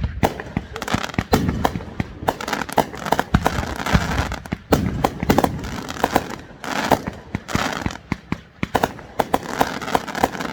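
Fireworks going off in rapid succession: many sharp bangs, several a second, with crackling between them.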